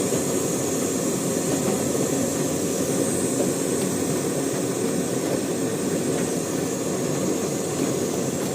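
MSR PocketRocket gas-canister stove burning at full flame, a steady rushing hiss, while it heats a pot of water.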